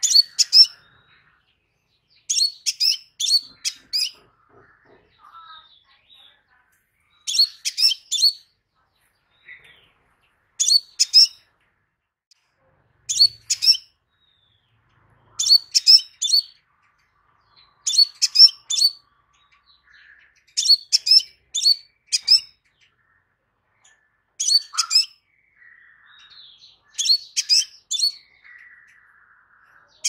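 Crimson sunbird song: short bursts of four or five sharp, very high notes in quick succession, repeated about every two to three seconds, with faint thin twitters between bursts.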